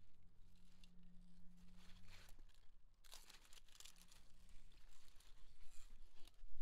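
Zucchini leaves and stems rustling and crackling as a hand pushes in among the plants, in irregular bursts from about three seconds in, over a faint low hum.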